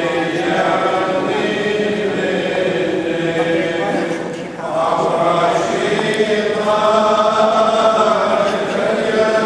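A group of voices sings a church chant in long, held notes. The singing drops away briefly about halfway through, then comes back louder.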